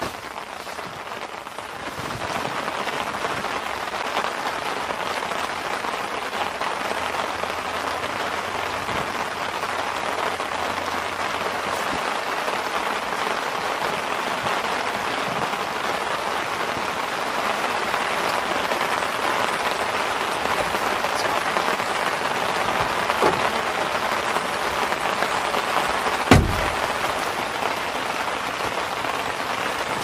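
Steady rain falling on tent fabric, heard from inside the tent; it grows louder about two seconds in. A single sharp knock stands out near the end.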